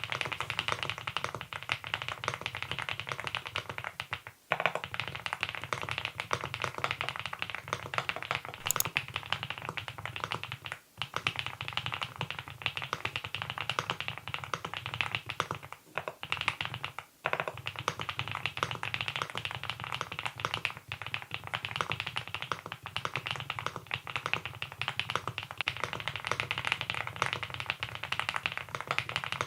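Typing on a Monstargear Ninja87 Pro ALU aluminium-case mechanical keyboard fitted with its stock Hanbaekok (한백옥) switches: a continuous stream of keystrokes, with brief pauses about four, eleven, sixteen and seventeen seconds in.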